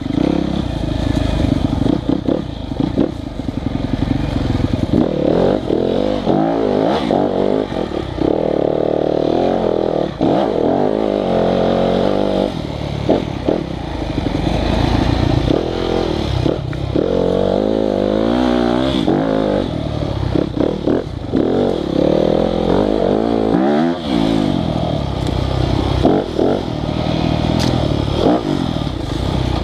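Yamaha YZ250FX's 250 cc four-stroke single-cylinder engine revving up and down over and over under hard riding, with scattered knocks and clatter from the bike over rough ground.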